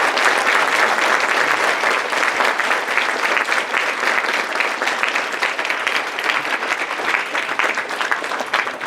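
Audience applauding, a dense, steady round of clapping from a large crowd that tapers off slightly near the end.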